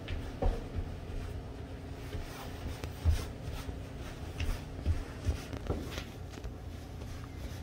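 Soft footsteps on hallway carpet and the rustle of a toddler's puffy snowsuit as he walks, with irregular low thumps, the loudest about three seconds in, over a steady low hum.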